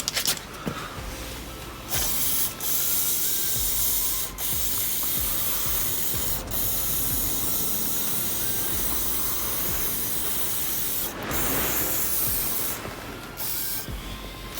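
Aerosol air flow meter cleaner spraying in a long hiss onto a car's air flow (MAF) sensor to wash off dirt, starting about two seconds in with a few short breaks.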